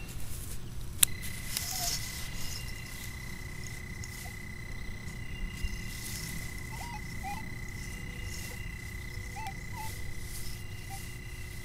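Minelab E-Trac metal detector sounding one steady high tone that starts with a click about a second in and holds for about ten seconds, as the coil is held over a hole to pinpoint a buried coin. Faint short chirps sound over it.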